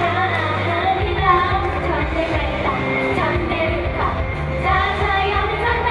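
Upbeat idol-pop song with a girl's lead vocal sung into a handheld microphone, over a steady bass beat played loud through the stage sound system.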